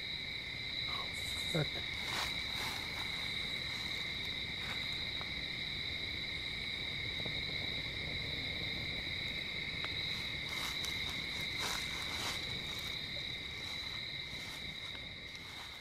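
Steady chorus of night insects, a constant high shrill at two pitches, with a few brief rustles and knocks now and then.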